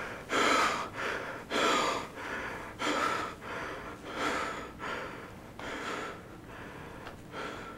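A man breathing hard through his open mouth, a run of short, ragged breaths about one a second that grow fainter toward the end.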